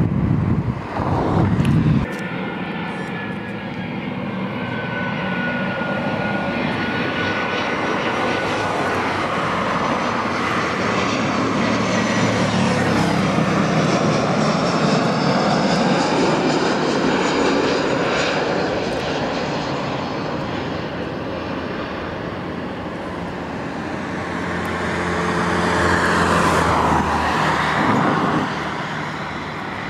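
Jet airliner engines, several aircraft in turn: a gusty low rumble for the first two seconds, then steady jet noise with a whine sliding down in pitch a few seconds in. The noise swells around the middle, as an Airbus A320 on landing approach with its gear down flies by, fades, and swells again near the end as a jet moves on the runway.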